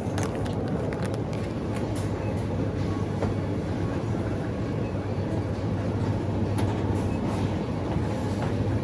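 Steady low rumble with a constant hum and a few faint clicks.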